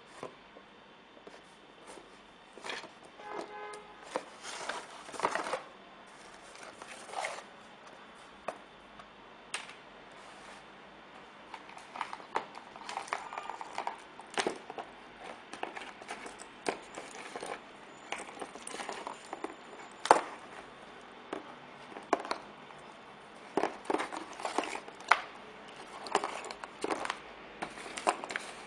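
Close handling noise: irregular clicks, taps and rustling, with a short tone about three seconds in.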